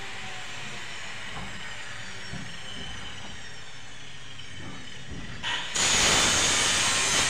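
A small blade scraping and carving into gypsum plaster, giving a steady hiss. About five and a half seconds in it becomes much louder and rougher.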